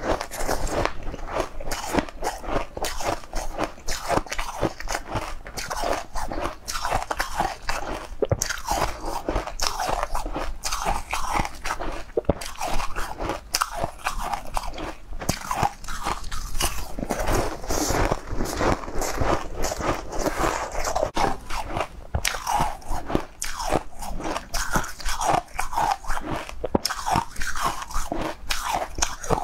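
Close-miked eating: a purple, crystal-coated food bitten and chewed, a steady run of crisp, irregular crunches.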